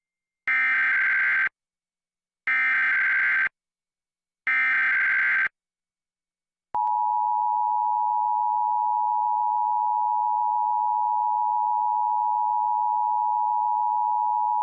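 Emergency Alert System broadcast signal: three one-second bursts of screechy digital SAME header data, about a second apart, then about seven seconds in the steady two-tone EAS attention signal. Together they mark the start of a coordinated monthly alert test.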